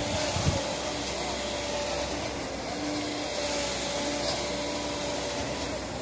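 Concrete pump running steadily, a continuous machine din with a faint hum in it. Two dull low knocks near the start.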